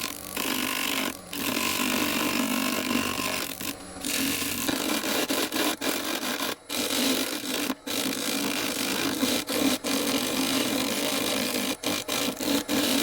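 Woodworking lathe spinning a driftwood-and-epoxy-resin blank while a turning tool scrapes and cuts it, with a steady low hum under the cutting noise. The cutting breaks off briefly several times, about six short gaps.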